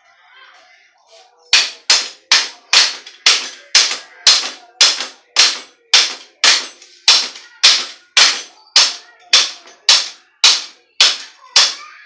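Hammer blows on a bicycle's front fork, struck at a steady rate of about two a second, each with a short ring. The blows start about a second and a half in.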